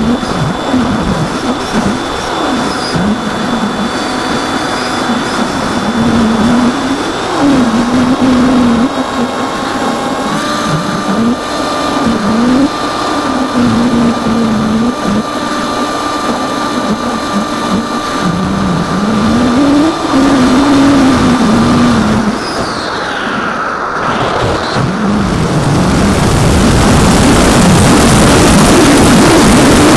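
Electric motor and propeller of an AXN foam FPV plane in flight, the buzz rising and falling in pitch as the throttle changes. Near the end, wind rush over the airframe swells loud as the plane noses down steeply.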